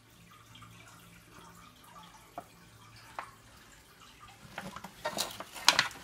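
A plastic jug pot handled in an aluminium foil tray: a couple of faint ticks, then a burst of crackling taps near the end, over a faint low hum.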